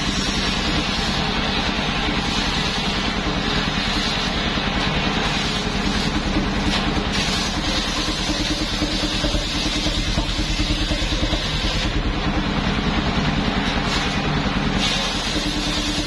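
Homemade truck-mounted circular sawmill running steadily, its engine giving a fast low pulse, while the large blade rips a long wooden board lengthwise.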